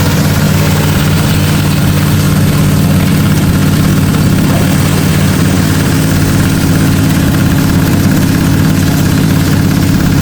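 Waste sorting machine and its conveyor running, a loud, steady engine-like drone that does not change.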